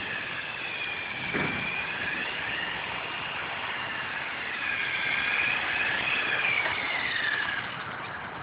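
Small RC helicopter's motor and rotor whining in flight, its pitch rising and falling. It gets louder for a few seconds past the middle, then drops off near the end.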